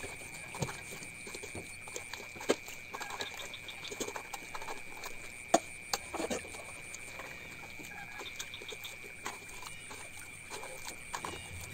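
Grated coconut being squeezed and pressed by hand in metal bowls and a stainless colander to extract the coconut milk: scattered scrapes, rustles and taps, with two sharper knocks of the plastic container against the metal in the first half. A steady high-pitched tone sounds throughout.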